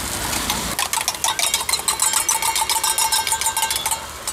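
A spoon beating raw eggs in a steel tumbler: rapid metallic clinking with the tumbler ringing, starting about a second in and stopping near the end.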